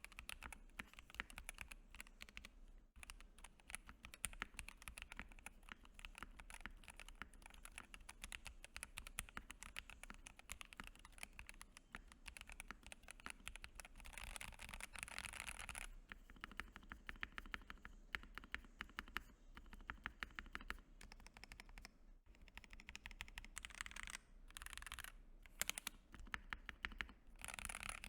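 Typing sound test on a Keydous NJ80 mechanical keyboard with a brass plate and whale keycaps: a fast, steady run of clacky keystrokes, broken by a few short pauses.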